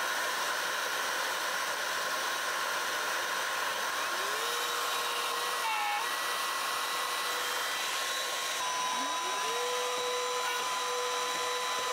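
Trend plunge router cutting mortises in MDF through a mortising jig, with a cordless vacuum drawing the dust off through a hose: a steady running noise throughout, in which a tone rises and then levels off twice, about four and nine seconds in.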